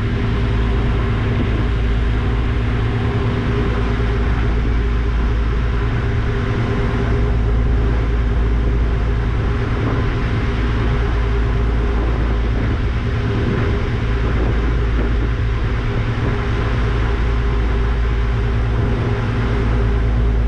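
Passenger ferry's engines droning steadily while under way: a deep, constant rumble with a steady hum, over an even hiss.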